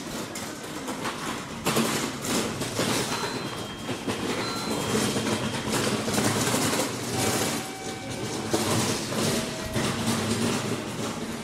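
A train running past on the rails, its wheels clattering over the rail joints in an uneven run of knocks.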